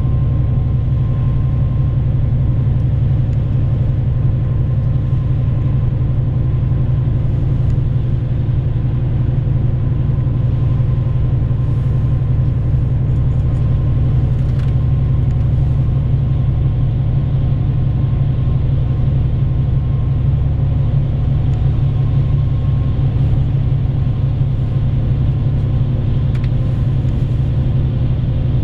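Inside a bus on the move: the diesel engine and tyres give a steady low rumble while cruising, with a few faint clicks about halfway through.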